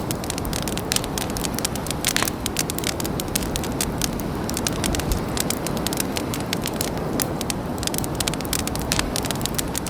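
Campfire burning, the wood crackling with many irregular sharp pops over a steady low rush.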